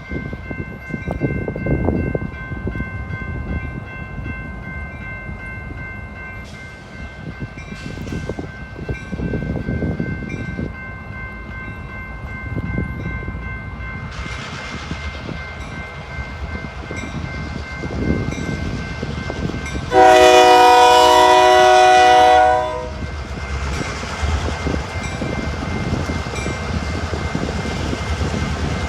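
A train running on the rails, with one loud locomotive horn blast of about two and a half seconds about two-thirds of the way in. Faint steady high tones sound above the rumble through the first half.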